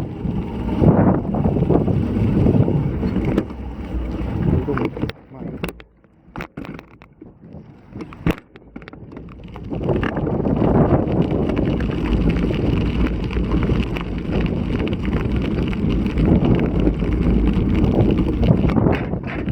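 Strong wind buffeting the microphone of an action camera on a moving bicycle, with a lull in the middle where a few sharp clicks are heard.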